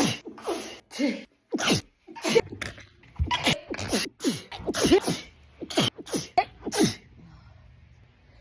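A woman sneezing in a rapid fit, about a dozen short, sharp sneezes in quick succession, each with a voiced, falling 'choo'. The sneezing stops about seven seconds in.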